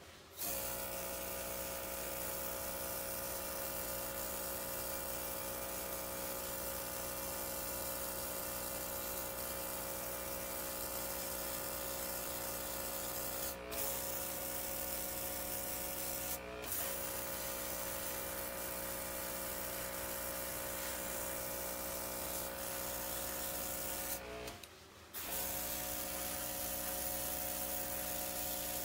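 Small airbrush compressor running with a steady motor hum while air hisses out of the airbrush as it sprays temporary colour. The hiss breaks off for a moment twice, and the whole sound stops for about a second late on, then starts again.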